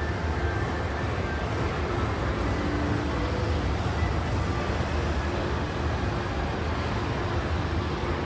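Steady background noise of a shopping mall interior: an even low rumble and hiss, with a few faint, brief pitched tones.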